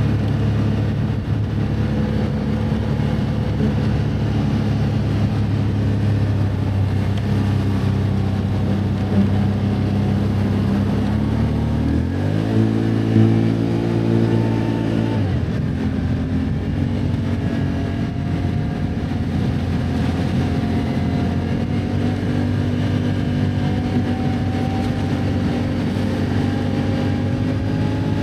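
Can-Am ATV engine running steadily while riding, revving up about twelve seconds in and dropping back to its steady note about three seconds later.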